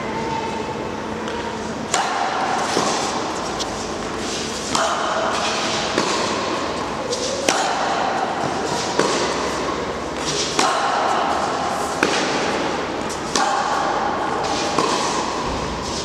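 Tennis rally: the racket strikes the ball with sharp pops about every one and a half seconds. Every other shot is followed by a short vocal grunt from a player.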